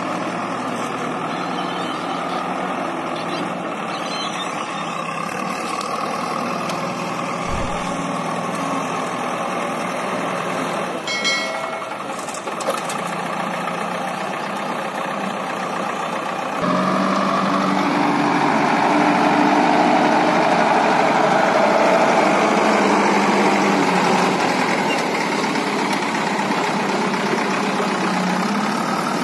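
JCB 3DX backhoe loader's diesel engine running steadily while the loader works, getting louder a little past halfway.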